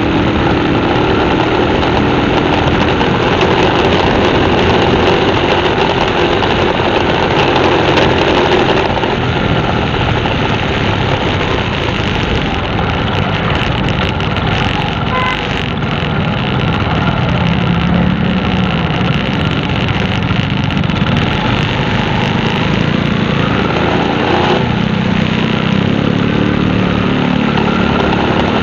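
A motor vehicle's engine running continuously, its pitch drifting slowly up and down, under a dense steady rumble.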